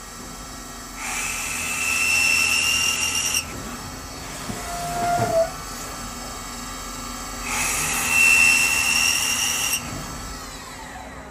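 CNC machine drilling holes in a metal casting: two cuts of about two seconds each, each a loud steady high whine as the drill bites, with a short move between them. Near the end the spindle winds down with a falling whine.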